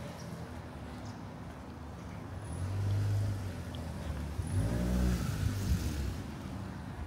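A car driving past, its engine and tyre noise building up from about the middle and loudest a little past it before fading.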